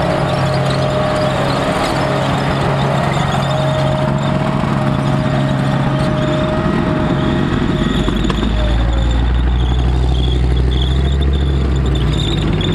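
Military vehicle's engine running loud and steady, with a high squeal held over it; about eight seconds in the squeal fades and a deeper engine note takes over.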